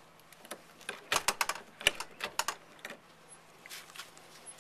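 Sharp clicks from an electronic keypad lever lock on a front door: its buttons pressed and its lever worked in quick clusters of four or five clicks, the door staying locked.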